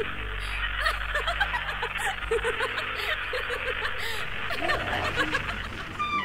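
Many overlapping voices murmuring and chuckling in short fragments, layered over a low steady hum.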